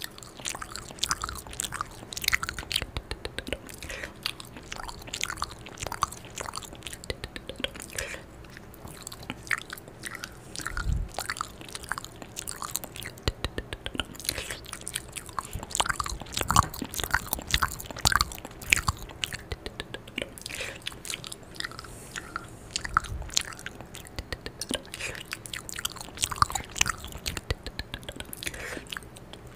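Close-miked ASMR mouth sounds: a fast, irregular run of wet clicks, smacks and nibbling, eating sounds mimed right at the microphone.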